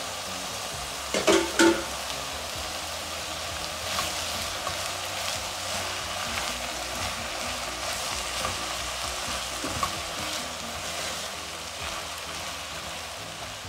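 Minced beef with freshly added chopped onion and garlic sizzling in a hot non-stick frying pan, stirred and scraped with a silicone spatula. Two sharp knocks come a little over a second in, then a steady sizzle continues under the stirring.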